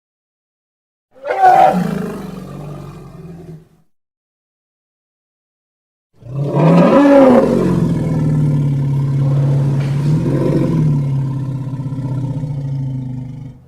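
Two designed triceratops roar sound effects with dead silence between them. A short roar comes about a second in. A long, deep roar starts around six seconds in, rises in pitch at its start, swells again later and holds for about seven seconds.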